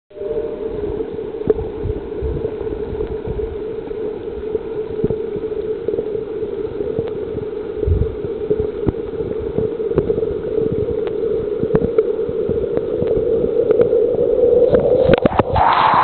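Waterfall heard underwater: a steady, muffled droning rush with scattered low knocks and clicks. At the very end the camera breaks the surface and the open hiss of the falling water comes in.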